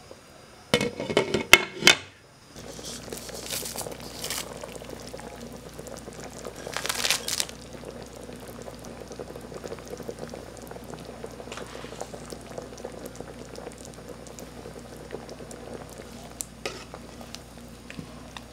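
Goat soup boiling in a pot, simmering until the meat is tender, with a steady bubbling. A short burst of loud clattering knocks comes about a second in, and a brief louder scrape around the middle.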